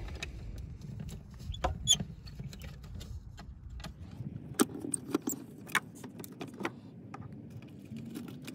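Scattered small metal clicks and taps of a flathead screwdriver and wire terminals being worked loose from the neutral bar of an RV's DC fuse panel. A low rumble runs under the first half and drops away about four seconds in.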